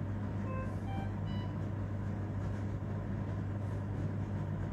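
Motorcycle engine running steadily at low speed. A few short high beeps sound about a second in.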